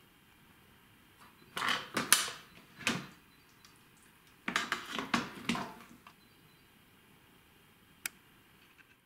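Lid of a SilverCrest (Lidl) pressure multicooker being handled and lifted off, plastic and metal clattering in two short bursts of knocks. A single click comes near the end.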